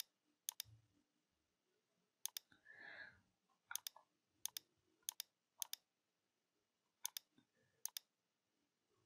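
Computer mouse buttons clicking, about eight times, each click a quick press-and-release pair, at an uneven pace. A faint soft rustle comes about three seconds in.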